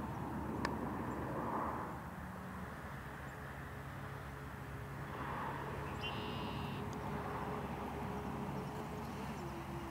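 Outdoor ambience: a faint steady hum with a wavering tone, one sharp click shortly after the start, and a bird calling briefly about six seconds in.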